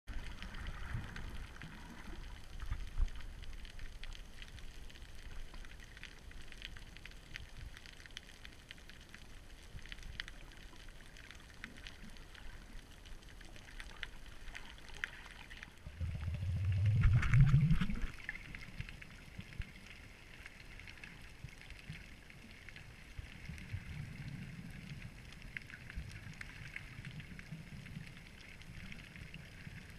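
Underwater noise picked up by a camera in its waterproof housing: a low rumble with faint scattered crackling. About sixteen seconds in it swells for two seconds into a louder surge with a rising low hum.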